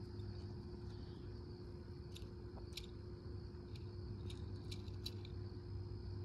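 Faint outdoor ambience: a steady high-pitched insect drone, with a few scattered light clicks.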